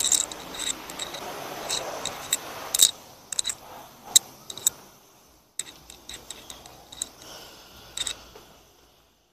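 Car-wash foam brush scrubbing the wet bodywork and grille of a car: a rubbing noise over the first three seconds, with a string of sharp ticks and clicks from the brush head and wand knocking against the car, the clicks being the loudest sound.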